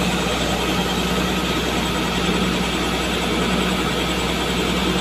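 An engine running steadily at a constant speed, a level hum without changes.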